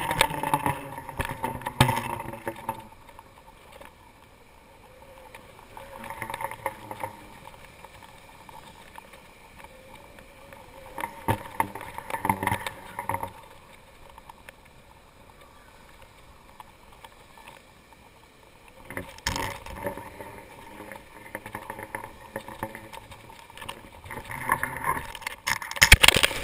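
Wind gusting over a GoPro slung under a kite, with the kite's fabric fluttering in gusts every few seconds and quieter stretches between them. Near the end comes a louder rush with knocks as the kite comes down onto the grass.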